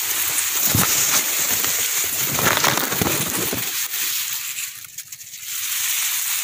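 Rice plants rustling as they are pushed aside by hand, then shallow muddy paddy water splashing and churning as a hooked snakehead thrashes among the stalks.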